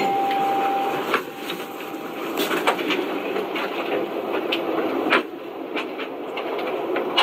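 A doorbell ringing: one steady tone that holds for about a second and then fades away. Steady background noise and a few sharp clicks run under it.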